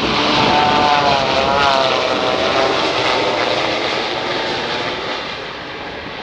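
Boeing 787 flying low overhead on approach with its ram air turbine deployed. The engine roar carries a buzzing, drone-like whine from the small spinning turbine, which wavers in pitch in the first couple of seconds, and the sound fades as the plane passes.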